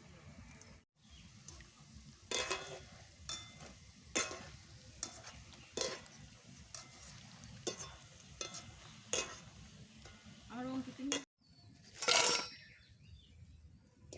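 Ghetkol-leaf pakoras sizzling in hot oil in a pan, with a utensil scraping and clinking against the pan every second or two as they are turned and lifted out. The sound cuts out briefly twice.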